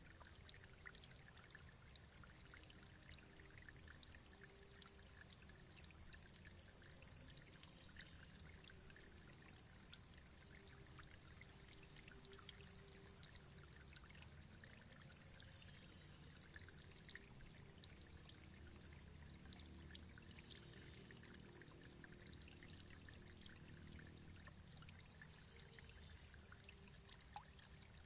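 Faint, steady running water, trickling, with many small scattered drips and splashes.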